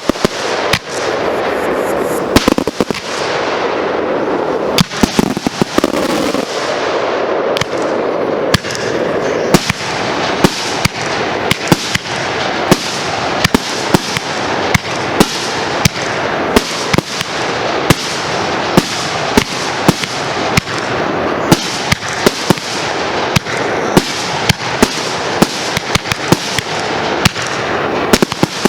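Fireworks barrage: a rapid string of sharp bangs, about two to three a second, over a steady wash of noise.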